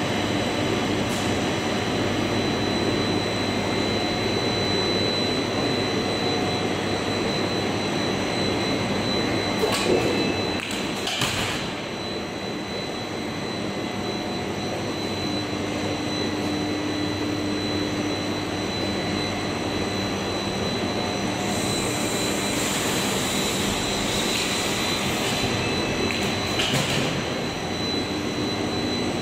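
Twin-screw plastic sheet extrusion line running: a steady machine drone with a constant high whine, broken by a few short louder noises about a third of the way in and again near the end.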